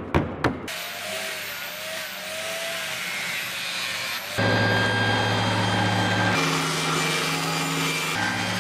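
A few sharp knocks of a chisel stripping bark from a wood slab, then an angle grinder with a sanding disc running against the slab's live edge, a steady grinding hiss with a wavering whine. About four seconds in it gives way to the louder, steady hum of a woodworking machine, which shifts in pitch twice.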